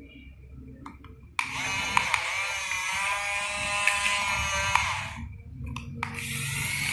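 Model excavator's small electric motors and gears whining. A steady whine starts about a second and a half in, holds for a few seconds with slight changes in pitch, drops off, then starts again near the end.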